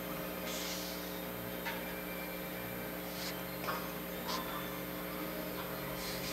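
Collectible trading cards being handled and laid down: about half a dozen short, soft swishes and slides over a steady electrical hum.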